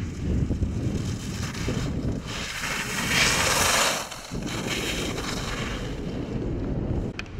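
Wind buffeting the microphone as a steady low rumble, with a louder rush of hiss from about two to four seconds in and a couple of sharp clicks near the end.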